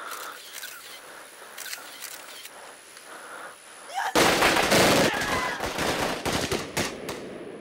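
Automatic gunfire: a loud, rapid, sustained burst of shots that starts about four seconds in, lasts about three seconds and then dies away.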